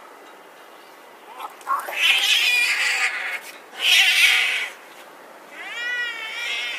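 Two domestic cats fighting. About a second and a half in, two loud, harsh screeches of about a second each break out as they grapple, followed near the end by a wavering yowl that rises and falls in pitch.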